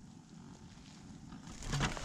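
Faint low rumble at first; about one and a half seconds in, footsteps crunching on snow begin and grow louder.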